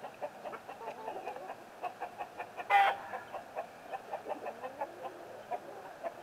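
Backyard chickens clucking continuously in short repeated calls, with one louder, drawn-out squawk about three seconds in.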